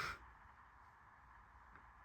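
Near silence: faint steady room tone with a low hum. A short breath-like puff of noise comes right at the start.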